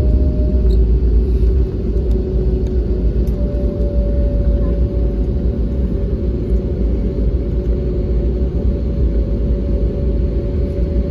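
Cabin noise inside an Airbus A320neo rolling along the runway after touchdown: a steady low rumble from the wheels and airframe, with a steady engine hum over it.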